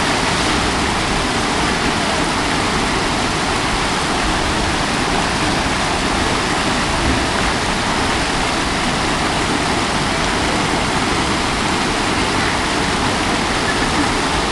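Small waterfall pouring over rock into a pool: a steady rush of water.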